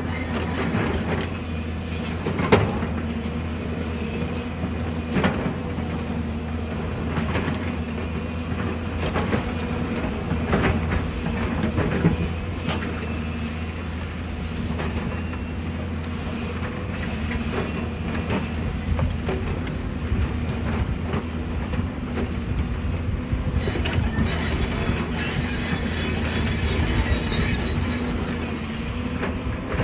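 Excavator running steadily under load, its engine drone and hydraulic whine broken by irregular knocks and metallic scraping as the bucket and tracks work against rock. A higher hissing rush joins in for the last several seconds.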